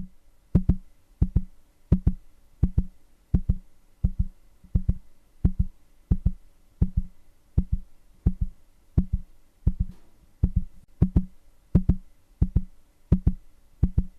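Heartbeat sound effect: a steady run of low double thumps, about 85 beats a minute.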